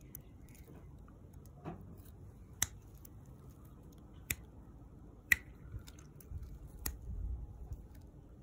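Sharp single clicks, about five of them spaced irregularly, the loudest just past the middle, over a faint low rumble that grows near the end.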